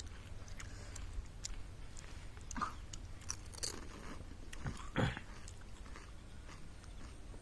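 Close-miked crunching and chewing of crisp fried snacks, with scattered small crunches and two louder bites about two and a half and five seconds in.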